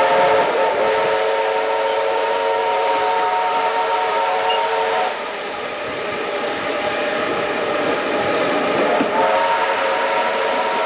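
Steam locomotive whistle blown in two long blasts, a steady tone of several pitches together: the first lasts about five seconds, the second starts about nine seconds in. Underneath runs the steady rumble of the moving steam train.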